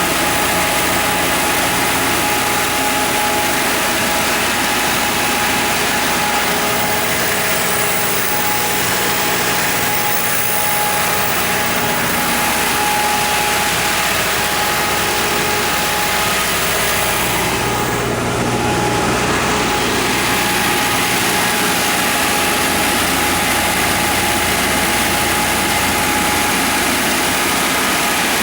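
Generac SD080 80 kW diesel generator set running steadily at a constant speed, its Iveco/FPT 4.5-litre four-cylinder diesel (rated at 1800 rpm) giving an even drone with a steady whine over it.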